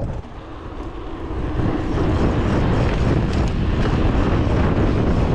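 Wind rushing over the camera's microphone on a moving bicycle, a steady low rush that is weaker for the first second or so and then holds level.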